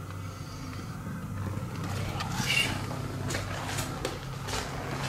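Footsteps and scuffs on a debris-strewn floor, with camera handling knocks, as a short run of sharp clicks from about two seconds in, over a low steady hum.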